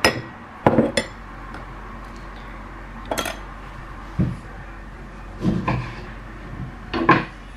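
A metal utensil clinking and knocking against a ceramic bowl, a handful of separate sharp clinks spread over several seconds, as avocado is worked into the guacamole mixture.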